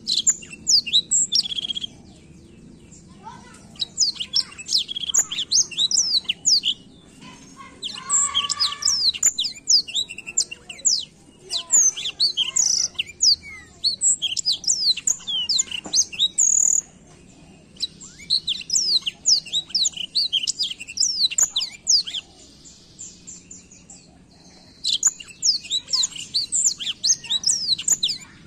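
Black-throated canary (blackthroat) singing a rapid, rolling twittering song of high, quickly falling notes, in several long phrases separated by short pauses.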